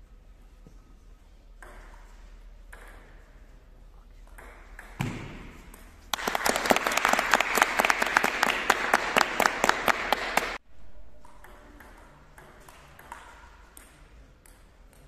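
Loud burst of clapping applause lasting about four and a half seconds, starting suddenly and cutting off abruptly, with a single knock just before it.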